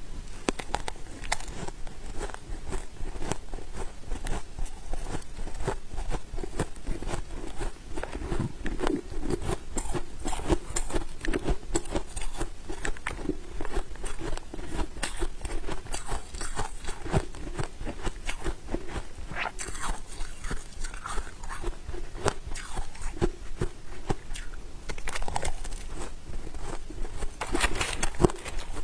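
Close-miked crunching of powdery freezer frost being bitten and chewed, a dense, continuous run of small crackling crunches. Near the end a metal spoon scoops through the frost in the box.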